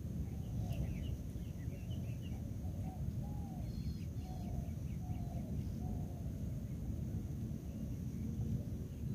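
Faint bird calls: a string of short arching notes and a few higher chirps, over a steady low rumble.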